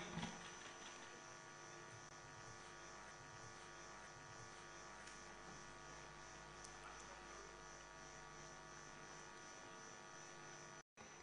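Near silence with a faint, steady electrical hum, which drops out completely for a moment near the end.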